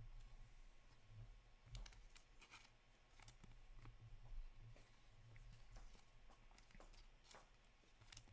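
Near silence with faint, scattered clicks and rustles of trading cards being handled and flicked through, over a low hum.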